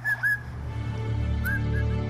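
Cockatiel whistling a quick run of short rising-and-falling chirps that breaks off within the first half second, with one more chirp about a second and a half in. Background music fades in and carries the rest.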